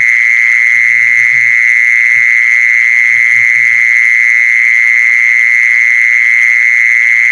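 A loud, continuous high-pitched trill from a calling animal, steady in pitch and level without a break.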